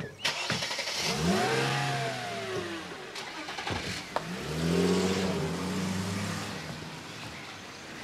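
A car's engine accelerating as the car pulls away from the curb. Its pitch rises and falls twice, once about a second in and again about halfway through.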